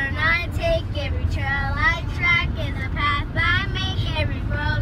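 Young girls singing together in the back seat of a moving car, over the car's steady low rumble.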